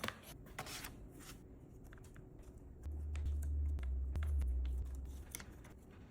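Light clicks and rustles of things being handled, with a low hum that starts about three seconds in and lasts a couple of seconds.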